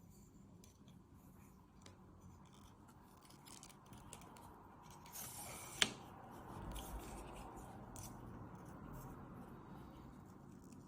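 Faint handling noise: a brief scraping sound a little past the middle, then a single sharp click.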